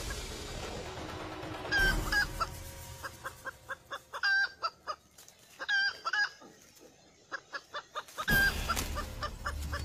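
Red junglefowl (labuyo) roosters clucking and giving short calls, with a quick run of clucks in the middle. Near the end the sound turns louder and noisier, with calls over it.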